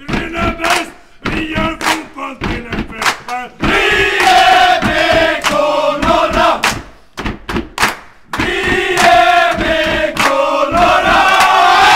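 A team of men singing their victory song together as a loud group chant: short, rhythmic shouted lines for the first few seconds, then long, drawn-out sung lines from about four seconds in, with a short break near the eight-second mark.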